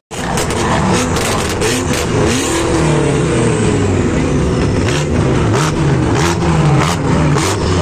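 Mercedes-AMG C63 S's twin-turbo V8 being revved repeatedly while parked, the pitch rising and falling with each blip, with sharp cracks mixed in.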